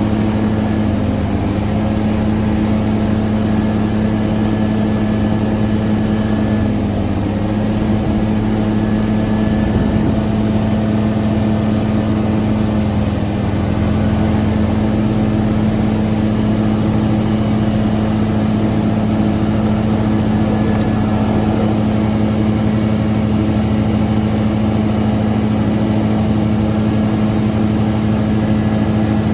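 Hitachi Zaxis 490 LCH excavator's diesel engine and hydraulics running steadily, a constant even hum at one pitch.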